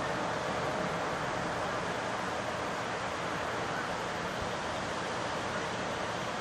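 Steady wash of ocean surf mixed with wind noise on the microphone.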